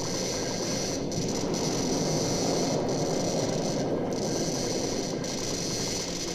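Horror sound-effects recording: a steady, dense rumbling noise with a crackly texture, over a faint hiss.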